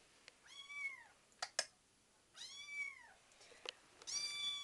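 Five-week-old kitten meowing: three drawn-out, high-pitched meows, each rising and then falling in pitch. A few sharp taps fall between them.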